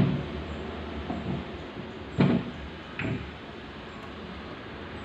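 Metal tool clinks while a small bolt is undone on a Perodua Viva Elite gearbox: one sharp knock about two seconds in and a lighter click a second later.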